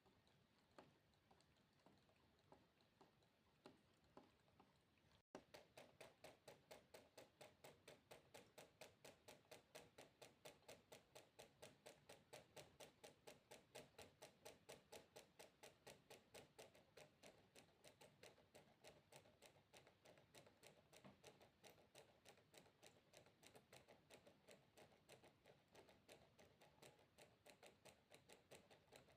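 Faint water droplets dripping: sparse, irregular drips at first, then after a brief cut about five seconds in, a steady even dripping of about four drops a second.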